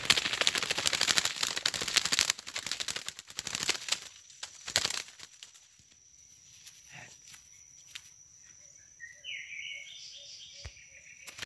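A snared bleeding-heart dove beating its wings and thrashing in the brush, a rapid rattling flutter for about four seconds with another short flurry about a second later. Near the end a bird gives a short rising call.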